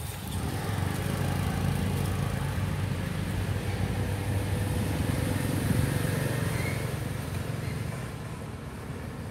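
Low engine rumble of a passing motor vehicle, swelling in the first second and fading over the last few seconds.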